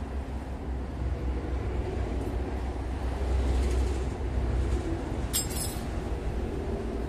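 A steady low rumble, with a single short metallic clink a little past five seconds in as a metal grooming comb is set down on a tile floor.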